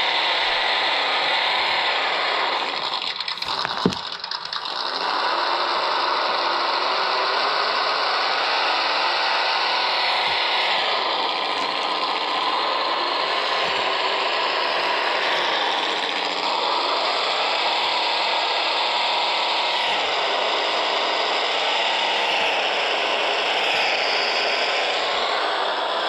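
Small 1/18-scale RC crawler's electric motor and gearbox whirring as it climbs over LiPo battery packs, the pitch rising and falling with the throttle. It eases off briefly with a sharp click about four seconds in.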